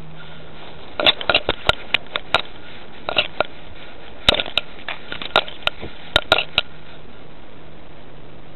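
Rustles and sharp clicks of grass and plant stems brushing and knocking against a collar-mounted cat camera as the cat pushes through garden plants. They come in quick clusters from about a second in and stop near the end, over the camera microphone's steady hiss.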